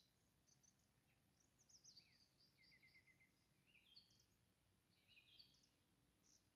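Faint birdsong: short high chirps and whistled notes, with a quick run of about six repeated notes in the middle.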